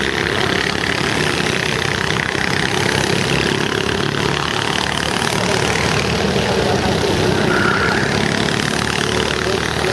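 Go-kart engine running steadily as the kart drives around the track.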